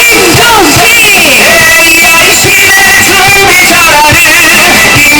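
Korean election campaign logo song playing loudly: an upbeat pop tune with a melody over a steady beat.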